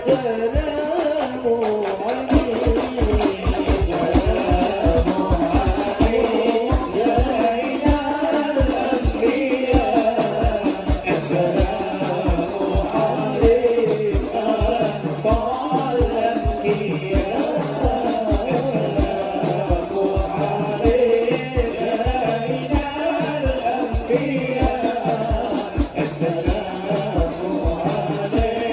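Hadrah ensemble performing an Islamic devotional song: several male voices singing together through microphones over a steady, quick beat of rebana frame drums, with a jingling rattle.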